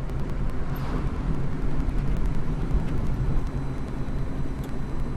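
Steady engine and road noise of a car being driven, heard from inside the cabin as a continuous low hum.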